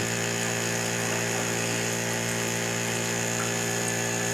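Small battery-powered water pump of a portable water heater running with a steady, even hum, drawing water in to fill the heater's reservoir.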